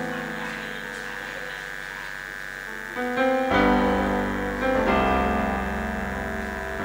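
Electric keyboard playing sustained chords as the introduction to a choir's song, with deep bass notes coming in about three and a half seconds in. A steady high-pitched whine runs underneath.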